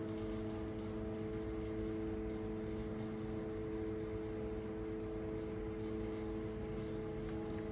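Steady machine hum filling an indoor room, made of several low, even tones over a noisy rush, with no change in level. A few faint light clicks come near the end.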